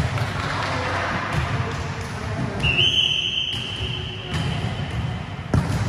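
Volleyball play echoing in a gym hall: ball impacts, with a sharp hit near the end, over players' voices and court noise. About halfway through, a steady high tone sounds for about a second and a half.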